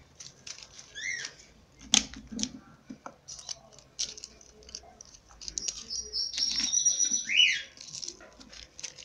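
Birds calling: a few quick high chirps about a second in, then a longer high call in the second half ending in a quick downward sweep. A couple of sharp knocks come around two seconds in.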